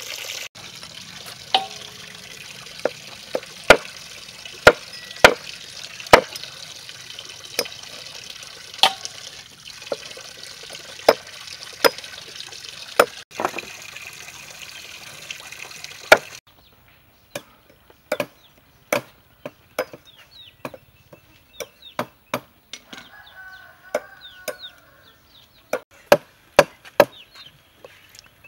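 Knife chopping the claws off raw chicken feet on a wooden chopping block: sharp single chops at irregular intervals, roughly one a second. A moment of running tap water opens it.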